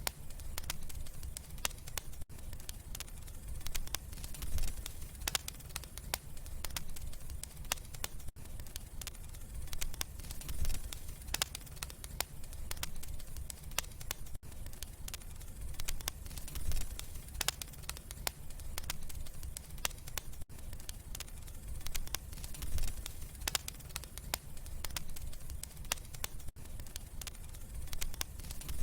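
Wood fire crackling in a fireplace: irregular sharp pops and snaps over a low, steady rumble of flames. The sound dips briefly about every six seconds, as a short repeating loop.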